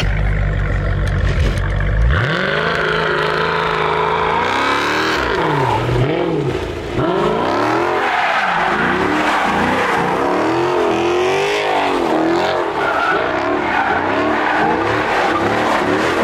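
Dodge Challenger's V8 doing donuts: a deep rumble for the first two seconds, then the revs climb and are held high, rising and falling as the throttle is worked, while the spinning rear tyres squeal.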